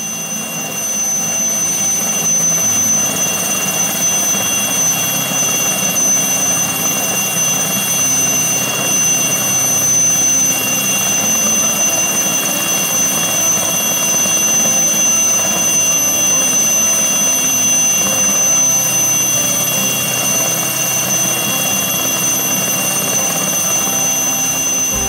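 Aérospatiale Alouette II turbine helicopter in flight: its Artouste turboshaft gives a steady high-pitched whine over a constant rushing engine and rotor noise. The sound swells in over the first second or two, then holds level.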